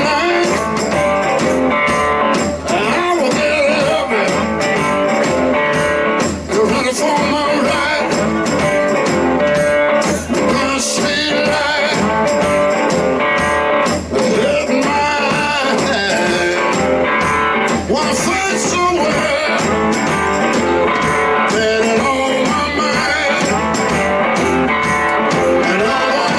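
A live blues-rock band playing: guitar over a steady drum beat, with the full band going throughout.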